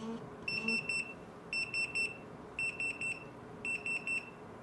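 Retekess TD173 pager beeping in its beep prompt mode: quick bursts of three short high-pitched beeps, about one burst a second, the call alert ringing on until the pager is pressed.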